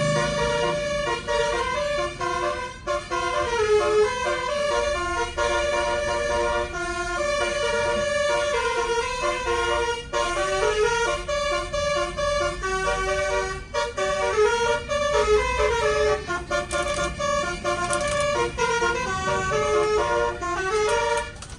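Bus's multi-trumpet Basuri telolet air horn playing a melody: several horn tones held together and stepping up and down in pitch almost without a break, over a low engine rumble.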